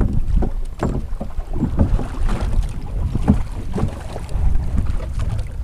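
Wind rumbling on the microphone aboard a small boat, with irregular knocks from the boat throughout.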